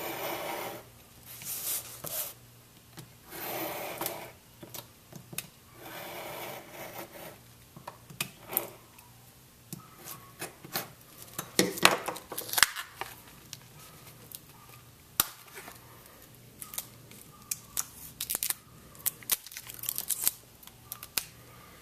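Scissors cutting through a plastic blister package on a cardboard card in a few long strokes over the first seven seconds. This is followed by the stiff plastic crackling and clicking as it is pulled apart and the tool is worked free.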